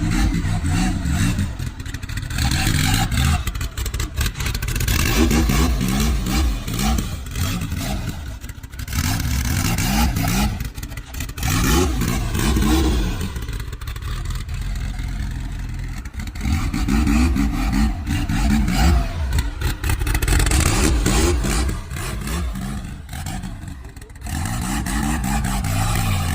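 Turbocharged Volkswagen Voyage engine revved loudly over and over, its pitch climbing and falling in surges of a few seconds. Brief drops between surges, with sharp crackles.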